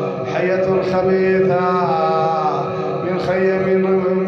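A man's voice chanting in drawn-out, melodic phrases, with the pitch gliding up and down, over a steady low drone.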